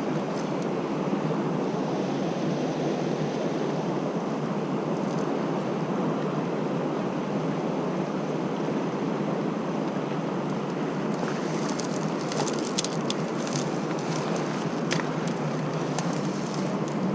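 Mountain stream water rushing steadily. Scattered light, sharp clicks come in over it in the second half.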